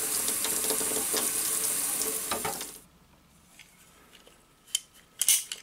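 Kitchen faucet running water onto a PVC pipe in a stainless steel sink: a steady splashing hiss that cuts off about three seconds in. Near the end come a few sharp clicks from a ratcheting PVC pipe cutter being worked on the pipe.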